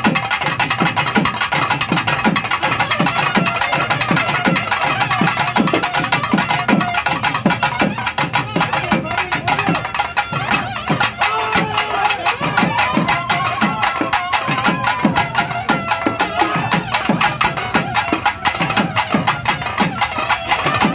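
Traditional South Indian temple festival music: fast, dense drumming with a wavering melody line running above it.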